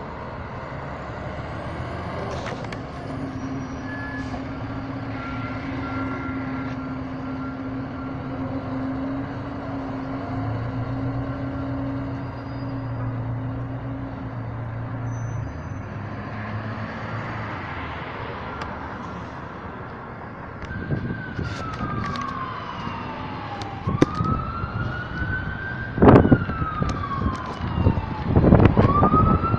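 A heavy emergency-vehicle engine runs steadily. About two-thirds of the way in, an emergency siren starts wailing, rising and falling over and over. Several loud knocks near the end come from handling of the phone.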